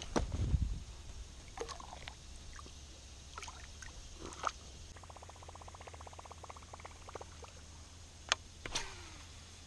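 Topwater lure being fished across calm water with rod and reel: a low knock and splash right at the start, then scattered small splashes and clicks, and a fast, even run of ticks for about two seconds past the middle. Two sharp clicks come near the end.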